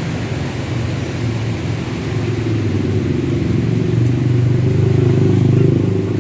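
A motor vehicle's engine running close by as a steady low rumble, growing louder about four seconds in and easing off near the end.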